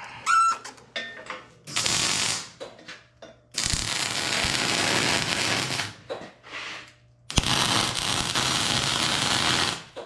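MIG welding arc crackling in three bursts: a short one about two seconds in, then two longer runs of a couple of seconds each. The shielding gas is turned off, so the wire is running bare.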